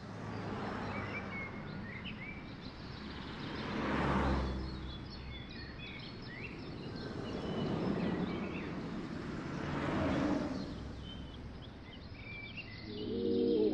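Outdoor ambience: birds chirping over a steady background of distant traffic, with three louder swells of vehicles passing by.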